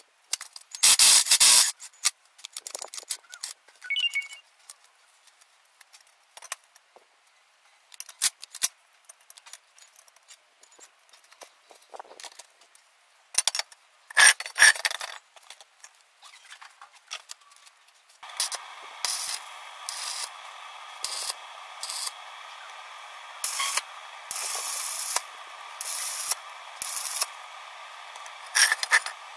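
Steel pipes and caster wheels clattering and scraping against a steel block as they are fitted into a frame. About 18 seconds in, a steady hiss starts, with repeated short bursts of electric arc welding crackle: the joints being tack-welded.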